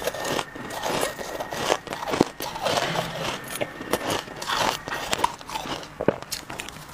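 Close-miked chewing of a mouthful of shaved ice: dense, irregular crunching and crackling as the soft ice grains are crushed between the teeth.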